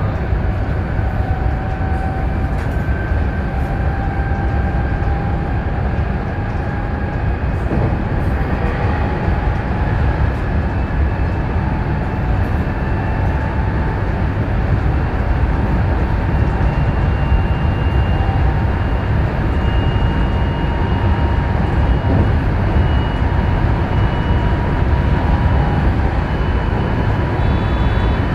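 JR West suburban electric train running at speed, heard from the driver's cab: a steady rumble of wheels on rails, with a whine that climbs slowly in pitch.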